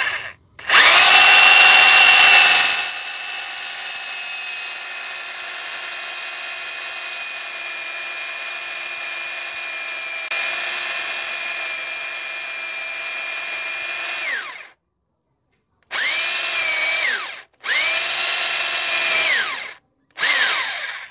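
A 900-watt electric drill boring into a wooden plank with a flat spade bit. The motor whine starts loud as the bit bites into the wood, then runs steadily for about twelve seconds and stops. After a short pause come three short bursts of the trigger, the pitch sinking each time it is let go. The cheap bit starts smoking and bends in the wood.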